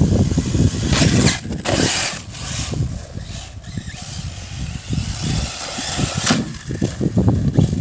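Arrma Typhon 1/8 electric RC buggy on a 6S battery being driven across a grass track, its motor and drivetrain running rough over the turf. There are louder surges of throttle about a second in, around two seconds and a little past six seconds.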